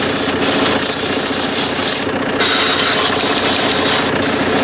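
Compressed air hissing loudly as the tractor's air filter housing cover is blown clean, the air cutting off briefly twice. A diesel tractor engine idles steadily underneath.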